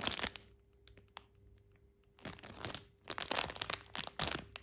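Plastic packaging crinkling in bursts as a squishy toy in its bag is handled: a short burst at the start, a near-quiet stretch, then longer crinkling from about two seconds in.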